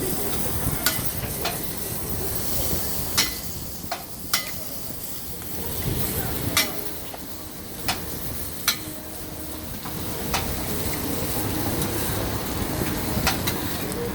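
Okonomiyaki sizzling on a hot iron griddle, a steady frying hiss, with about ten sharp clicks of metal tools striking the griddle at irregular intervals, roughly one a second.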